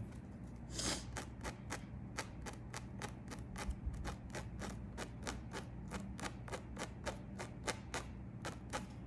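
Tweezers snapping shut in a fast, even run of sharp clicks, about three or four a second, as hairs are plucked one by one from a wig's lace frontal to thin the hairline. A faint steady hum sits underneath.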